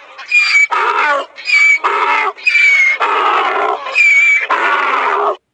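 Donkey braying: a run of about four hee-haws, each a high, thin 'hee' alternating with a lower, fuller 'haw'. It cuts off suddenly near the end.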